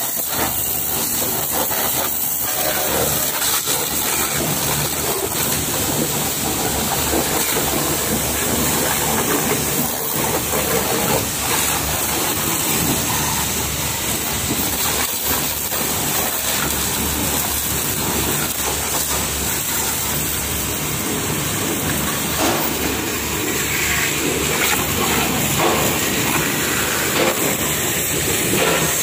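Water jet from a 150-bar high-pressure washer spraying steadily onto a scooter and wet concrete.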